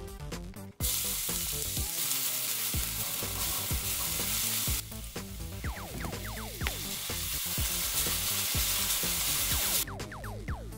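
Chopped red onion sizzling in hot oil in an enameled cast-iron wok while a wooden spoon stirs it. The sizzle starts about a second in, breaks briefly near the middle and stops shortly before the end.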